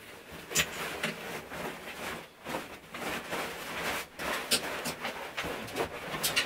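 Fabric shower curtain rustling as it is unhooked from the rod and gathered up by hand, with scattered small clicks.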